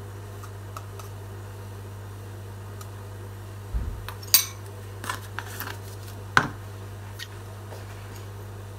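Metal spoon clinking and tapping against a ceramic bowl and a small jar as dry yeast is spooned out: a few scattered clinks, the sharpest about four and a half seconds in, over a steady low hum.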